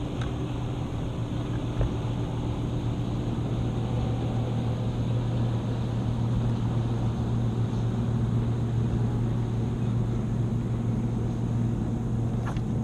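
Boat motor running steadily, a low drone that grows slightly louder over the first half.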